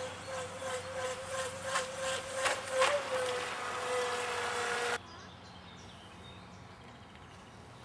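Model speedboat's water-cooled Viper 700 brushless electric motor whining at a steady high pitch as the boat runs fast, with splashing of the hull on the water. It stops suddenly about five seconds in, leaving quiet background.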